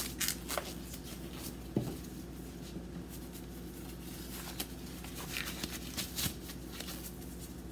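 Purple disposable gloves being pulled on and handled: faint rustling with a few light snaps and clicks, one sharper click about two seconds in, over a steady low hum.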